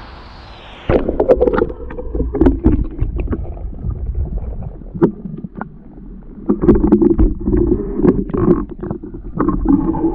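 Camera microphone taken under river water: about a second in the open-air hiss gives way suddenly to a loud, muffled underwater rumble, with gurgling and many sharp knocks and clicks as the camera is moved about beneath the surface.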